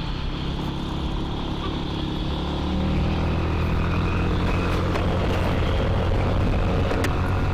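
Yamaha NMAX scooter's single-cylinder engine running steadily under way, with wind and road noise; its hum grows louder about three seconds in.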